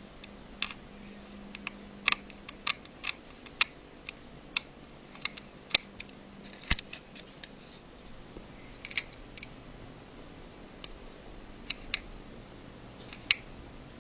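Sharp, irregular clicks and taps of small tools and tiny screws being handled on an iPhone 5 during reassembly. The clicks come thickest in the first half, then thin out to a few scattered ones.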